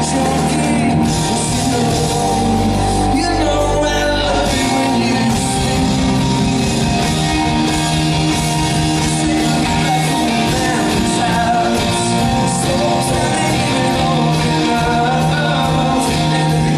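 Live rock band playing: electric guitars, bass and drums with male singing. Low held bass notes carry the first few seconds, then a steady drum beat picks up about four seconds in.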